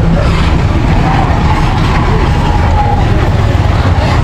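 Steady, loud rumble of a moving motor vehicle, with a faint wavering tone above it.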